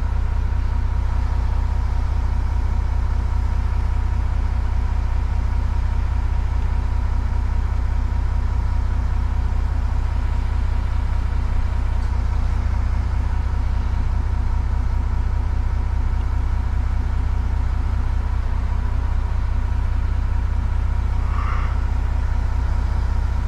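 Video-game truck diesel engine idling steadily with a deep, even low rumble and a thin constant tone above it.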